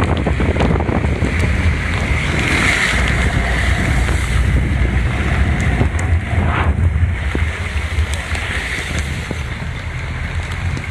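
Heavy rain pouring down onto floodwater, a steady noisy rush, with wind buffeting the phone's microphone as a deep rumble underneath.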